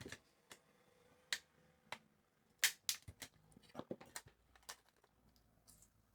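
Faint, sharp little clicks and taps at irregular spacing, a quick cluster of them about four seconds in: small hand tools working at a calculator's tiny metal key contacts to get a part out.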